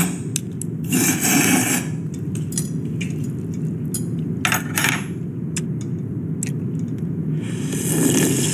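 Several people eating noodle soup: chopsticks clicking and scraping against bowls, with short noisy slurps, over a steady low hum.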